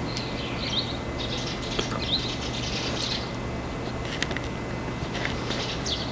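Small birds chirping in short, scattered calls, with a few light clicks and a steady low hum underneath.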